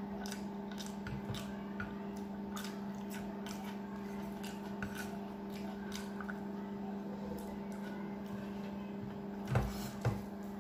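Close-up wet chewing and mouth sounds of a person eating rice mixed with curry by hand, with faint squishing and clicks as the food is mixed and eaten. A steady low hum runs underneath, and two louder knocks come about half a second apart near the end.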